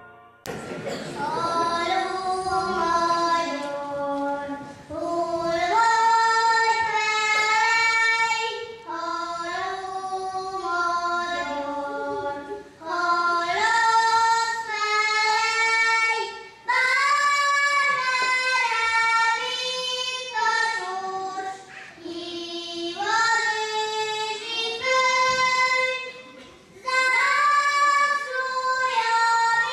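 Children singing a song in held phrases with short pauses between lines. The singing starts just after a brief break at the beginning.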